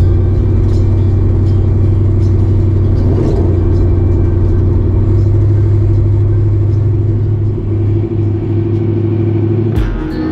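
A 1955 Chevy 210 wagon's engine running steadily as the car cruises down the road, a strong, low, even drone heard from inside the cabin.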